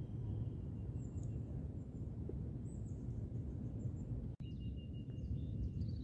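Steady low outdoor rumble with faint, high songbird chirps and a short thin whistled note over it. The sound drops out for an instant just past four seconds in.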